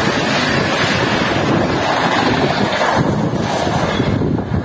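LHB passenger coaches rushing past at high speed: loud, steady wheel-on-rail rumble with a rush of air buffeting the microphone. The high hiss thins about three seconds in while the low rumble carries on.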